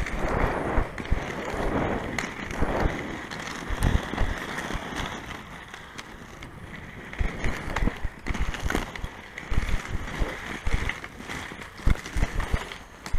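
Inline skate wheels rolling on an asphalt path, a rough rumble broken by irregular knocks and clatters, louder in the first few seconds and again near the end.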